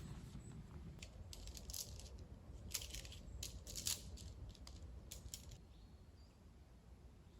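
Faint, scattered light clicks and rustles over a low steady rumble. They are thickest in the middle and die away in the last couple of seconds.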